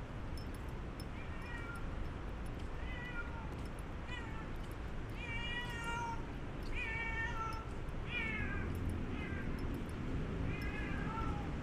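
An animal calling over and over: about eight short calls, each falling in pitch, over steady low street background noise.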